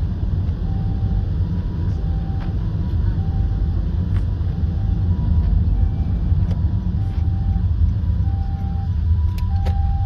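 Steady road and engine rumble inside a moving car, with a two-tone hi-lo siren in the distance: a higher and a lower note alternating in short beeps, typical of a Japanese ambulance, getting louder near the end.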